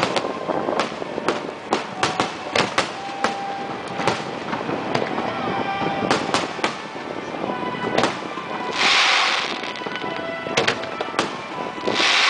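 Aerial fireworks shells bursting overhead in a rapid, irregular series of sharp bangs. Two short rushes of hiss come about nine seconds in and again near the end.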